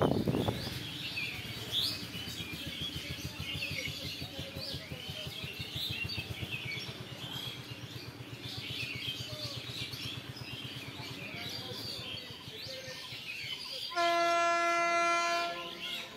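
Birds chirping over a low rhythmic rumble; near the end an approaching train sounds its horn once, a steady single-pitched blast of about two seconds.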